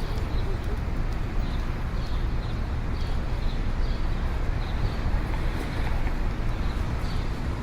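City street ambience: a steady low rumble of traffic, with short high chirps recurring about every half second.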